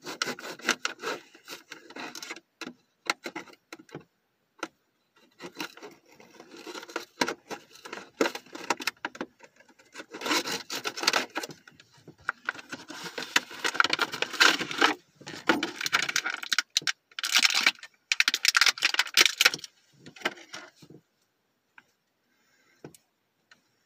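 An action figure's packaging being worked open by hand: bursts of crinkling, crackling and scraping with sharp clicks, stopping about three seconds before the end.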